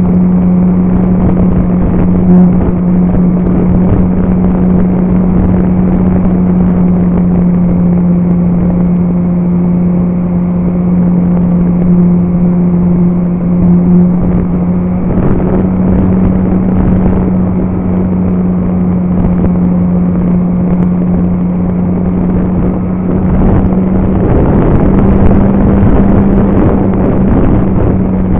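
RC Super Cub model airplane's motor and propeller running steadily in flight as a loud, even drone, heard from a camera mounted on the plane. The pitch shifts slightly a couple of times, and a rushing noise, likely wind over the airframe, swells near the end.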